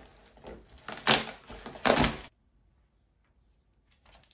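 Cardboard box and plastic packaging being handled as a small water pump is unpacked: rustling, crinkling and scraping, loudest about a second and two seconds in, then cutting off abruptly to near silence.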